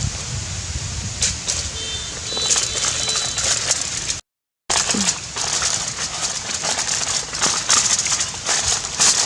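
Dense, irregular crackling and crunching made of many small clicks, broken by a sudden half-second dropout about four seconds in.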